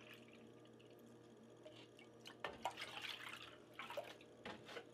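Milk poured from a plastic jug into a plastic measuring cup, then the cup tipped into a pot of milk. The pouring and splashing are faint, with the clearest splash about two and a half seconds in.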